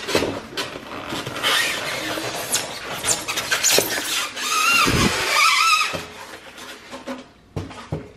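Packaging being handled and torn open: rustling, scraping and clicking of cardboard and wrapping, with a brief high squeak about five seconds in. It quietens near the end.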